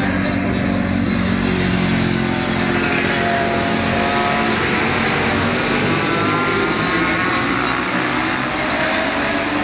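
Several racing motorcycles at high revs going through a corner, their engine notes rising and falling as they accelerate away, over a steady low rumble and hiss.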